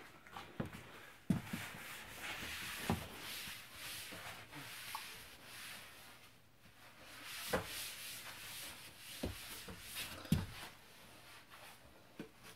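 Hand wiping and rubbing across the floor of a wooden snake enclosure, a dry scrubbing in two long stretches, with a few sharp knocks against the wood.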